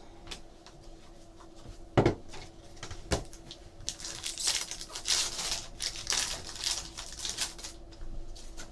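Trading cards and pack wrappers being handled: two light knocks, then a few seconds of papery rustling and sliding strokes.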